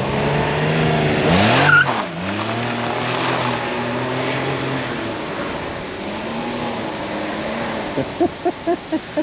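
Can-Am Ryker's engine revving, its pitch climbing and then dropping about two seconds in with a short rushing burst. It then runs on more steadily and slowly fades.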